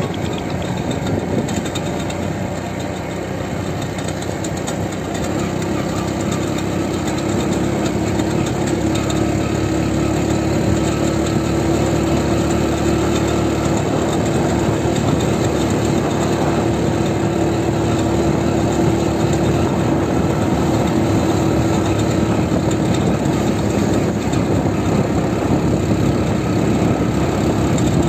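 A vehicle's engine running steadily while driving along a road, a continuous drone with road noise and no pauses.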